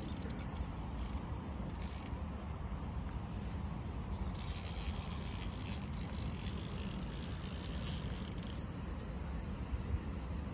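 Fishing reel being cranked, its mechanism ticking, over a steady low rumble.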